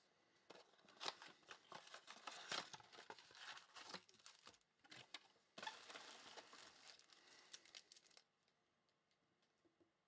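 Plastic wrapping and foil trading card packs crinkling and tearing as a card box is opened and its packs are pulled out and stacked, with small clicks of cardboard. There is a short lull about halfway, and it stops about eight seconds in.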